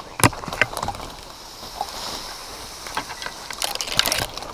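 Quick footsteps over dry leaf litter and twigs, with brush and branches rustling against clothing and gear. There are irregular snaps and knocks, the sharpest just after the start, and a louder spell of rustling near the end.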